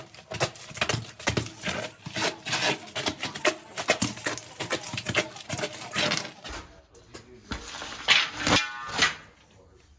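Rapid, irregular knocks, scrapes and rustles of a person crawling through a low crawl space and clambering over pipes. Near the end comes a short, louder sound with a pitched tone, the loudest moment.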